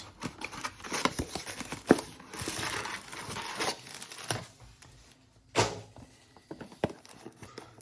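Trading card blaster box packaging being handled and opened: crinkling and tearing of plastic wrap and cardboard, with a few sharp clicks and knocks.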